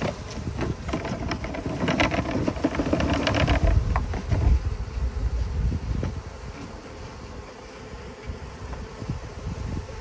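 Honey bee swarm buzzing while a plastic bucket of bees is tipped and shaken out onto the ground, with knocks and handling noise over the first four seconds or so. After that the bees settle to a quieter, steady hum.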